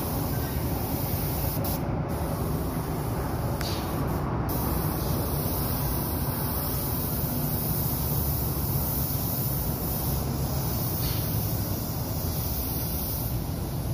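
Paint spray gun hissing steadily as it sprays a coat onto steel beams, the high part of the hiss dropping out briefly twice in the first few seconds, over a steady low rumble.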